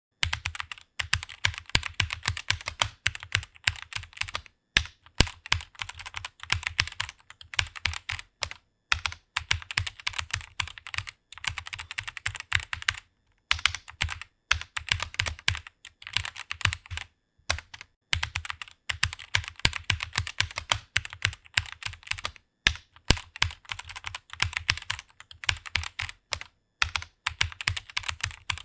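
Typing on a computer keyboard: fast runs of keystrokes broken by short pauses.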